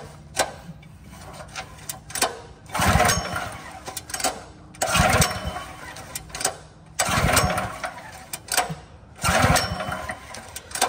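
Old Kohler small engine being pull-started by its recoil rope four times, about two seconds apart; each pull spins it over, but it does not fire, even with carburetor cleaner sprayed into the intake. Failing to catch on carb spray points to a spark problem, a bad spark plug, or a failed low-oil shutdown.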